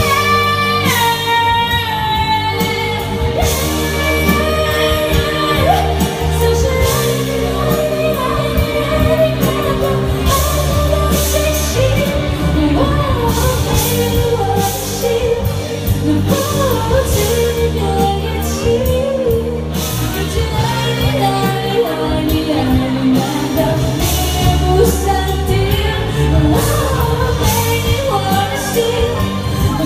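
Live pop music with a singer, played in a large room.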